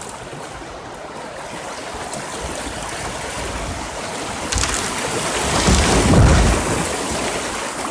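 Creek water rushing around a kayak on the move, with wind buffeting the microphone; the rush swells louder about five to six seconds in.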